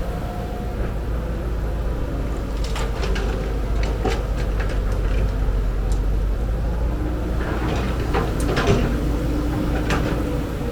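Heavy diesel earthmoving machinery running steadily, with scattered metallic clanks and knocks about three seconds in and again about eight seconds in, typical of an excavator working.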